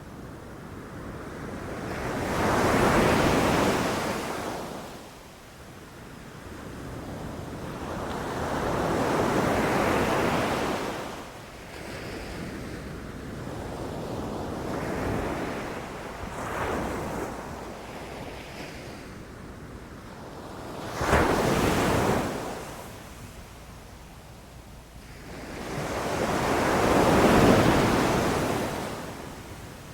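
Ocean surf breaking and washing up a beach, swelling and ebbing every five or six seconds; about two-thirds of the way through one wave breaks with a sharper, more sudden crash.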